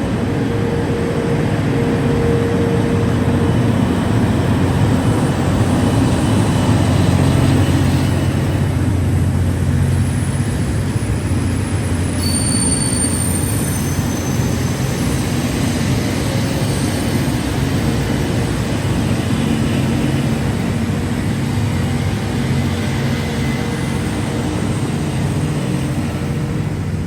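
A diesel train running by, with a steady low engine drone over continuous rumbling from the rails.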